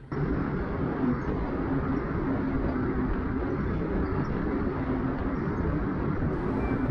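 Sea-Doo jet ski engine running steadily with a constant drone, over the rush of water and wind.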